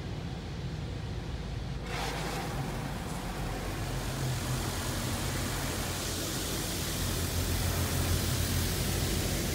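Automatic car wash spraying the car, heard from inside the cabin: a hiss of water that starts suddenly about two seconds in and grows louder, over a steady low hum.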